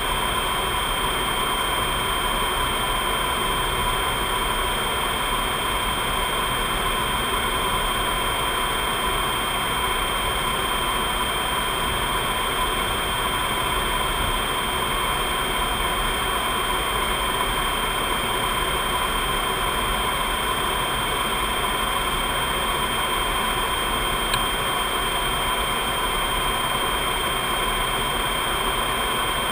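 Steady flight-deck noise of a C-5 Galaxy in cruise: a constant rush of airflow and engine sound with several steady high whines running through it.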